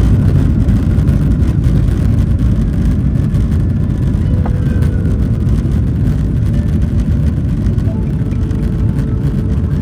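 Cabin noise inside a Boeing 777-300 on its takeoff roll: the jet engines running at takeoff thrust over a loud, steady low rumble from the wheels on the runway.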